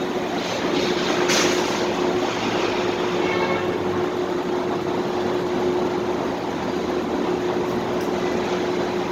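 Steady parking-lot ambience of vehicles and machinery: an even rushing noise with a constant low hum. A brief hiss comes about a second in, and a faint short squeak comes around three and a half seconds.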